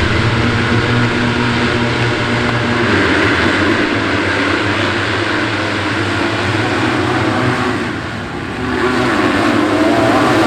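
Many motocross bikes' engines running at high revs together, with a brief dip about 8 seconds in before the sound rises again.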